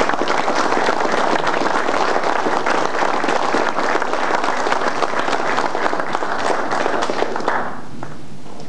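Audience applauding in a steady round of clapping that dies away near the end.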